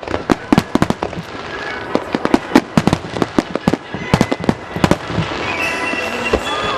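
A rapid barrage of aerial firework shells bursting, many sharp bangs in quick succession over show music. The bangs thin out after about five seconds, leaving the music more prominent.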